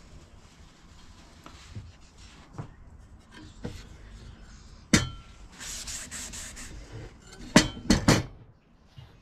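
Cloth rag rubbing oil into a wooden axe handle. There is a sharp knock about five seconds in, and three quick knocks near the end as the saw-blade axe is set down on the wooden workbench.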